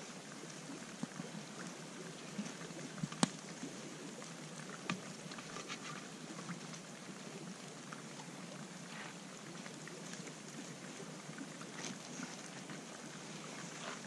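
Quiet, steady outdoor background hiss with occasional small clicks and taps of a knife and bacon being handled on a rock, one sharper click about three seconds in.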